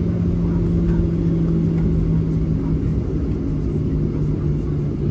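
Jet airliner heard from inside the passenger cabin: a steady low engine and airflow drone with a humming tone that dips slightly in pitch about three seconds in.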